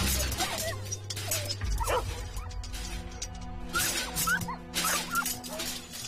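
Dog barking and yelping in several short, sharp calls, in a few quick groups, over background music.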